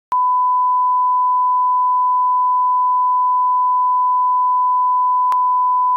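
Steady single-pitch line-up test tone of the kind played with television colour bars, held at one unchanging pitch, with a short click as it starts and another about five seconds in.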